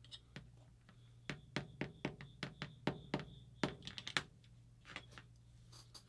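A run of irregular sharp metallic clicks and taps, about fifteen, as tools and metal parts knock together while the paintball marker's regulator is worked on, with a faint ringing tone under some of them.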